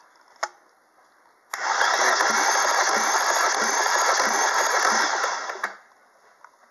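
Opel Z18XEP 1.8-litre four-cylinder engine cranked on its starter for a cold compression test of the third cylinder, with a gauge in the plug hole. The starter runs for about four seconds, starting suddenly and cutting off, with a rhythmic pulse about three times a second as each compression stroke comes round.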